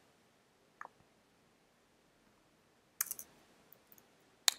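A few isolated computer keyboard key presses: a faint tick about a second in, a short cluster of clicks about three seconds in, and a single sharp click near the end.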